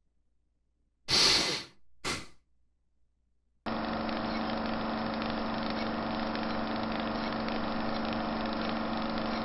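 Two short breathy hisses, then about four seconds in a steady droning hum sets in and holds at one unchanging pitch.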